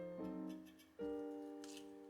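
Gentle solo piano background music: slow chords struck and left to fade, a new chord about a second in. A brief faint rustle of kitchen work near the end.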